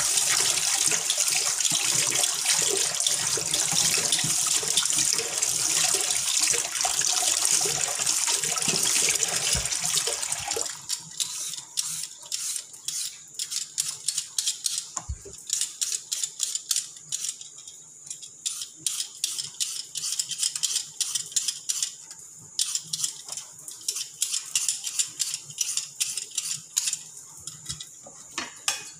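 A steady rushing noise that stops abruptly about ten seconds in. After it, irregular light pops and ticks from curry bubbling in a glass-lidded wok.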